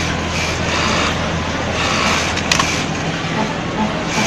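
Sewing machine running with a steady motor hum as fabric is stitched, with a sharp click about two and a half seconds in.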